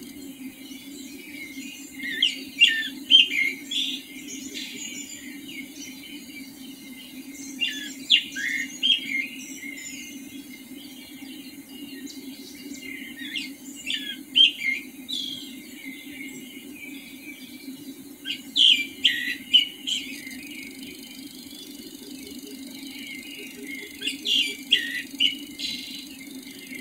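A songbird sings five short phrases of quick, high chirping notes, one about every five to six seconds, over a steady low hum.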